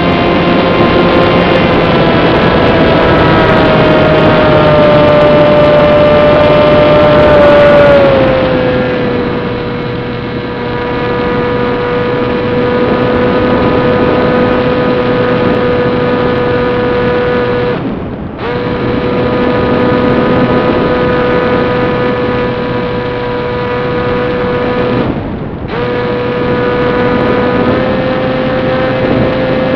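Brushless electric motor and propeller of a small FPV plane whining steadily in flight, a Turnigy 2822-1450 motor turning a 7060 slow-fly prop. The pitch steps down a little about eight seconds in, the sound cuts out briefly twice, and the pitch rises again at the very end.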